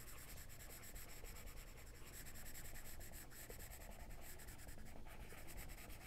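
Faint, quick scratching and rubbing of a pen on a drawing surface as a picture is coloured in.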